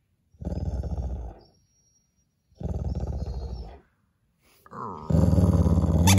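Bernese mountain dog growling in play while mouthing a plush squeaky toy. There are three bouts of growling with pauses between them, and the third, from about five seconds in, is the loudest and longest.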